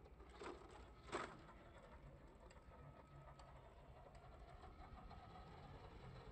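Two sharp knocks about two-thirds of a second apart, the second louder, from a WPL D12 RC pickup and its model wardrobe load tipping up onto one side and dropping back onto concrete. Otherwise only faint background.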